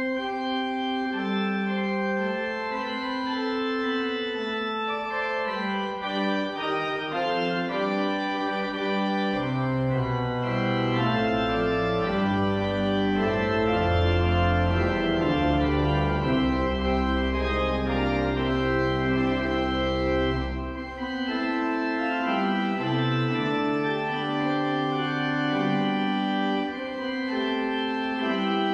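Pipe organ playing slow, sustained chords. Deep pedal bass notes come in about ten seconds in and drop out around twenty seconds.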